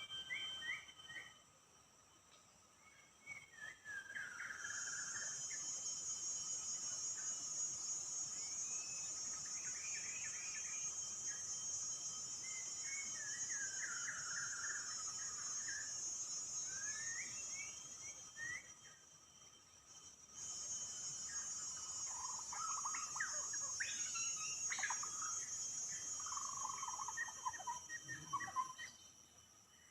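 A songbird singing varied short whistled phrases over a steady, high-pitched insect drone. The drone breaks off for about two seconds midway, then returns and stops near the end.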